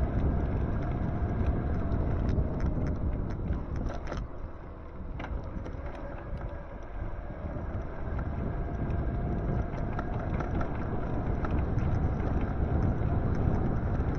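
Wind buffeting the microphone and road rumble while riding an e-bike, with a faint steady whine and a few light clicks. It eases off for a few seconds near the middle.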